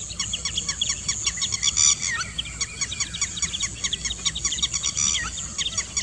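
Birds chirping: a dense, unbroken chatter of short, high calls over a faint low rumble.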